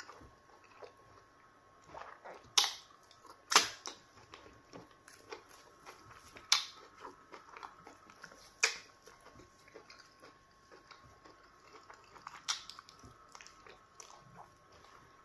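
Close-miked eating of pounded yam fufu with slimy okra stew: soft chewing with about five sharp, wet mouth smacks spread through.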